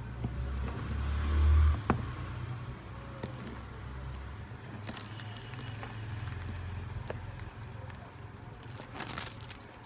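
Hands handling and turning a cardboard smartphone box, fingers rubbing and scraping its surface with light crinkling and scattered clicks. A low thump about a second and a half in is the loudest moment, followed by a sharp click.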